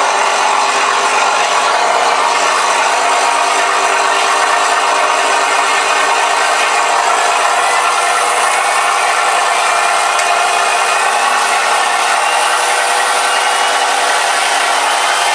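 Recorded Rolls-Royce Merlin engine sound played by a ShockWave sound module through the model's two 4-inch speakers, running steadily after its start-up. The sound is synthetic engine noise and has almost no deep bass.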